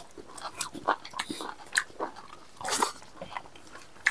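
People eating rice and beef with their hands: irregular chewing and lip-smacking, with short clicks and smacks.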